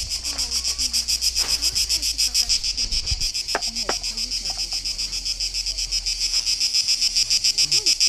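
Cicadas singing loudly in the trees in a fast, evenly pulsing, high-pitched chorus.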